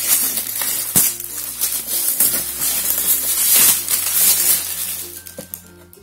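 Cardboard firework box of Sony 'Magic Stars' being handled and opened by hand: loud rustling and scraping of the packaging, with a sharp knock about a second in. It dies away near the end.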